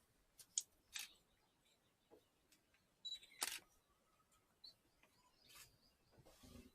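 Camera shutter clicks, a handful of sharp single shots spaced irregularly, over a quiet forest with faint bird chirps.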